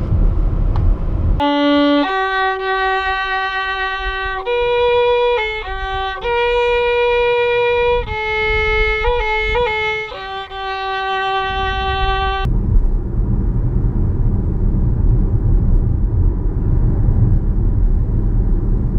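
Solo violin playing a slow melody of long held notes for about eleven seconds, starting about a second and a half in. Before and after it, a low steady rumble of road noise from inside a moving car.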